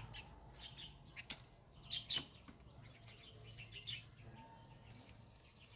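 Faint bird chirps in short, repeated bursts over a steady high insect buzz, with one sharp click about a second in.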